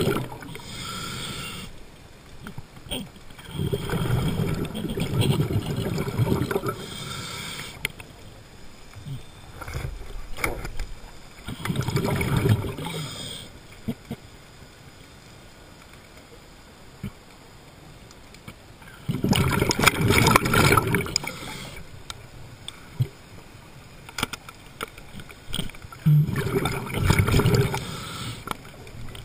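Underwater gurgling of a scuba diver's exhaled bubbles. Bursts of a few seconds come every several seconds, five times, with quiet water between.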